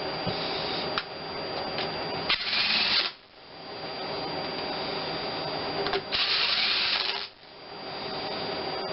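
Two short runs of a power drill or driver, each about a second long, over a steady background hum.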